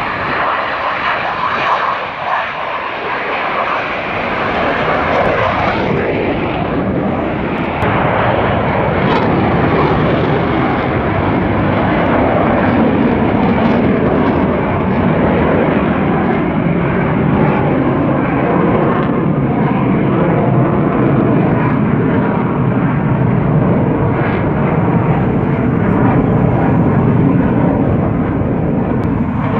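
Fighter jet flying low overhead, its engine roar continuous and loud. About eight seconds in it grows louder and deeper and then holds steady.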